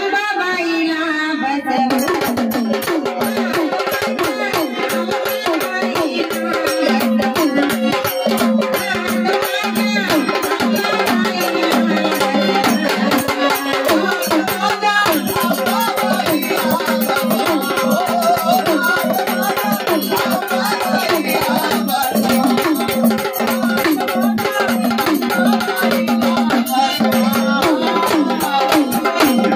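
Jagran-party devotional song music: a melodic line that is soon joined, about two seconds in, by hand drums and rattling percussion in a fast, busy rhythm, over a steady held drone note.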